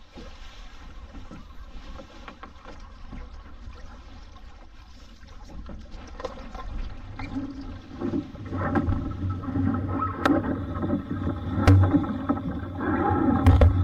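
An RS Vareo sailing dinghy moving through the water: water rushing and slapping along the hull. From about eight seconds in it grows louder, with a low rumble and a few sharp knocks.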